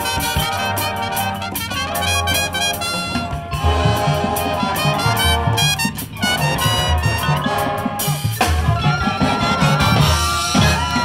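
Marching band playing brass-led music, with saxophones, a featured trumpet, front-ensemble marimba and percussion.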